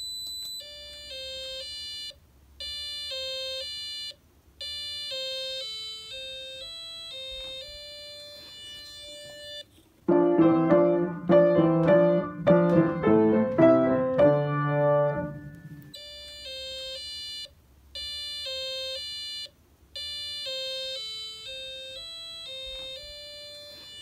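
A small speaker driven by square-wave PWM from a Raspberry Pi Pico beeps out a simple tune, one buzzy electronic note at a time with short gaps between them. About ten seconds in, an acoustic piano takes over for about six seconds, louder and fuller, before the beeped tune resumes.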